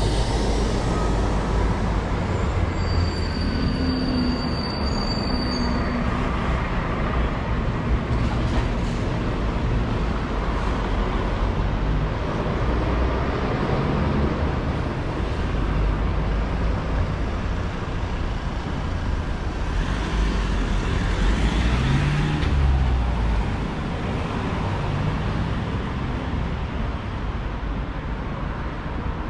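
Road traffic on a city street: vehicles passing in a steady rumble, with a brief high whine a few seconds in and a vehicle going by louder about two-thirds of the way through.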